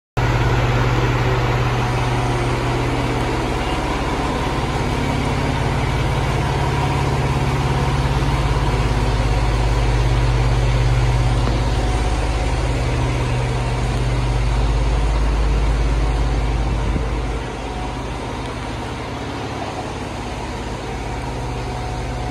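Diesel engine of a 2022 Pierce Velocity fire pumper idling steadily with a deep, even hum. It gets a little quieter about seventeen seconds in.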